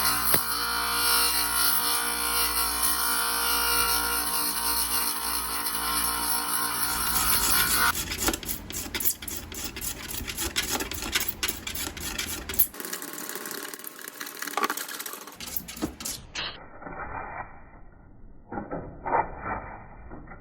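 Tool work on a plastic tail-light lens: a small power tool runs steadily for several seconds, then gives way to irregular scraping and rubbing strokes.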